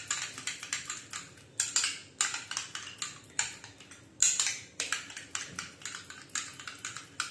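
A spoon beating curd (yogurt) in a small bowl, clicking and scraping against the bowl's sides in quick strokes, several a second, with short pauses.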